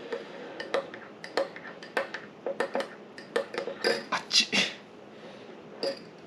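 Cutlery and tableware clinking: an irregular run of light clinks and taps, loudest a little past the middle.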